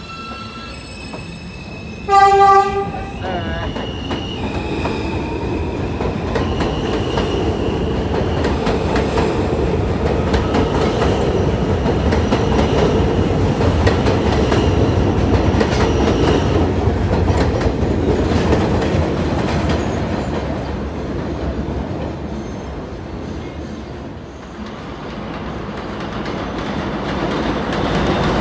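New York City subway train on the elevated J/M line: a short horn blast about two seconds in, then a train running past with a steady rumble of wheels on the track and a high whine over it. The sound eases off a few seconds before the end, then another train begins to build.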